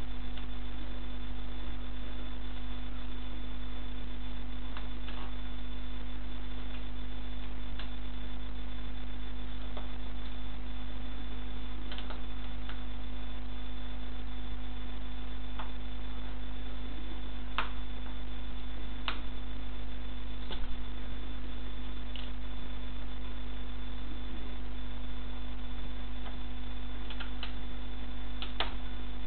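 Steady electrical mains hum, with a few faint sharp cracks spread through it: a plastic toy car breaking up under platform boots.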